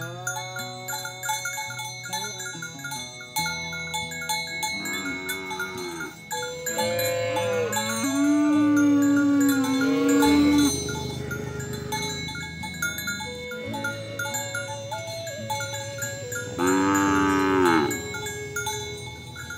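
Cattle mooing: a shorter call, then a long drawn-out moo and a second long moo near the end, over steady bell-like ringing.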